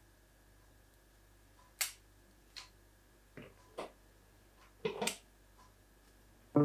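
A handful of short, sharp taps and light snaps as green chillies are handled and set down on a wooden chopping board, the loudest about two seconds in and again about five seconds in, over a faint steady room hum.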